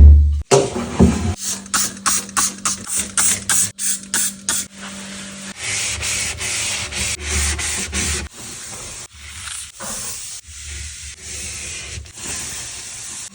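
Scrubbing a surface by hand: quick back-and-forth rubbing strokes, about four a second at first, then slower, longer passes.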